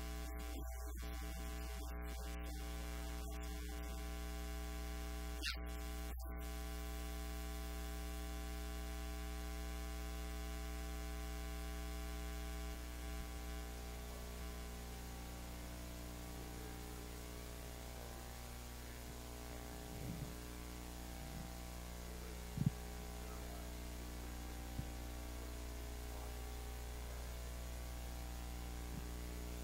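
Steady electrical mains hum with a ladder of overtones, the fault in this recording's poor audio. A few faint knocks, the loudest about 22 seconds in.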